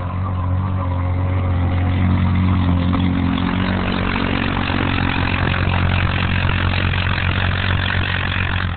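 Yamaha Rhino 450 side-by-side's engine running under load as it ploughs through deep packed snow: a steady low engine drone that grows louder over the first two seconds and then holds.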